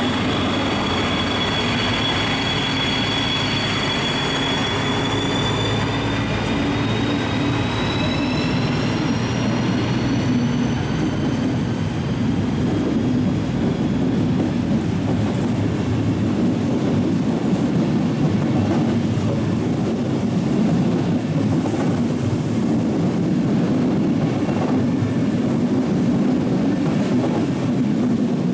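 Two DB class 218 diesel-hydraulic locomotives pulling away with an Intercity train, their engines rumbling and a high whine rising slowly in pitch over the first ten seconds or so as they accelerate. The passenger coaches then roll steadily past.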